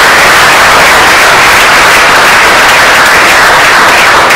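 A large audience applauding, loud and steady.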